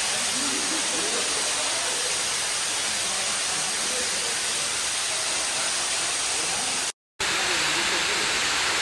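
Indoor waterfall: water pouring from a circular ceiling opening into a shallow pool, a steady rushing hiss. It cuts out for a moment about seven seconds in.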